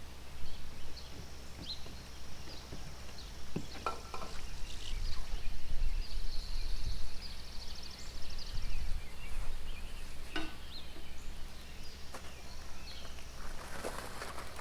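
Small birds chirping in short calls, with a rapid buzzy trill for a few seconds midway, over a steady low rumble. There is a louder rustling noise near the end.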